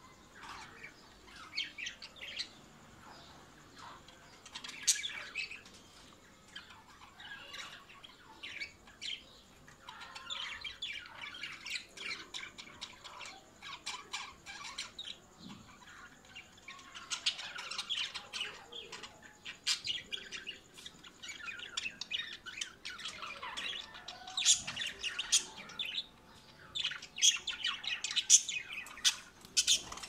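Budgerigars chattering: many quick chirps and squawks in clusters, getting busier and louder over the last several seconds.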